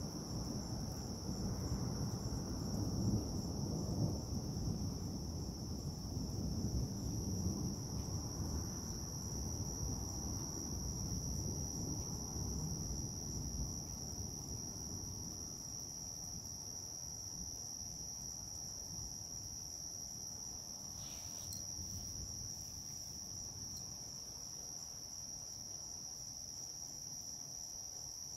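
Night insects trilling steadily at a high pitch, over a low thunder rumble that dies away during the first half.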